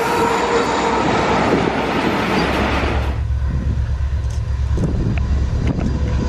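RoRo freight train's flat wagons loaded with trucks rolling past close by, with a dense rumbling clatter and the tail of the locomotive's horn at the very start. About three seconds in the close noise cuts off, leaving a steady low rumble with a few faint clicks.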